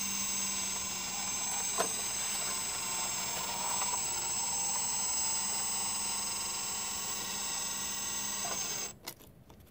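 Hydraulic pump of an RC Geesink Norba garbage truck model running with a steady high whine while the brass hydraulic cylinders cycle the packer plate through the hopper. There is a single click about two seconds in, and the pump cuts off suddenly near the end.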